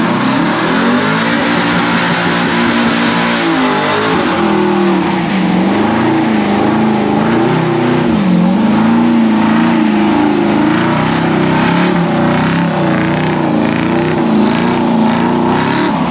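A vehicle engine running and revving, its pitch rising and falling again and again.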